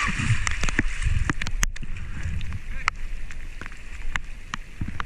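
Water splashing and sloshing right at a camera riding at the surface as a snorkelling swimmer moves through the water, with scattered sharp clicks and irregular low thumps.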